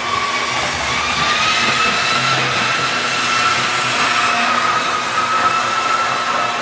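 Tri-ang Blue Pullman model train running on its track, its old electric motor giving a steady high whine that wavers slightly in pitch over a rushing noise; the whine is normal for this old Tri-ang set.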